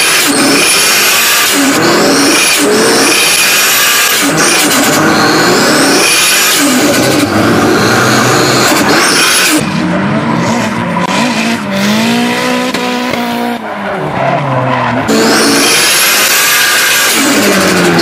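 Nissan S13 drift cars at full throttle in a tandem drift: an engine revs up, climbing in pitch, and drops again about every two seconds as the driver works the throttle, over a steady hiss of tyres sliding and squealing. About halfway through, for some five seconds, this gives way to a lower engine drone with rising and falling pitch and tyre noise from the cars heard from outside.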